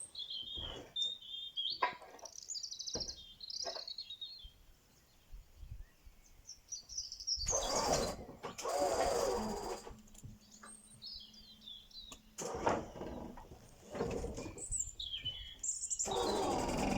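Small birds chirping, broken by a few louder noisy bursts of rustling or clatter, the longest about seven seconds in. A faint steady hum joins in the second half.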